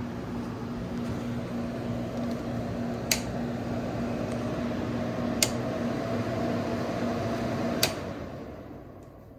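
Restored GE Thin Line window air conditioner running, a steady electrical hum over the rush of its fan. There are three sharp clicks, at about three, five and a half and eight seconds in. At the third the hum cuts off and the fan noise dies away as the unit is switched off.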